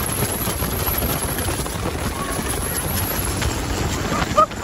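Turbocharged diesel longtail boat engine running hard at speed, a steady loud roar mixed with wind and water rush. There is a short louder burst just before the end.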